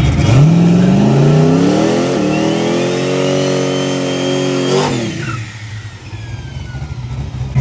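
Turbocharged LS V8 in a Fox-body Mustang revving up in two steps during a burnout, the rear tires spinning in smoke, with a turbo whistle climbing alongside. About five seconds in, the throttle is released: the revs drop suddenly and the whistle falls away.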